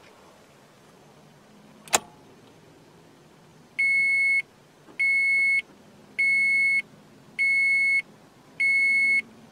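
A sharp click about two seconds in, then the Toyota Corolla's dashboard warning chime beeping five times, each beep a steady high tone about half a second long, a little over a second apart.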